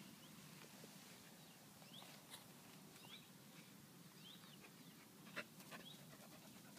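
A puppy's faint, high whimpering squeaks: short rising cries repeating about once a second, with a couple of soft clicks late on.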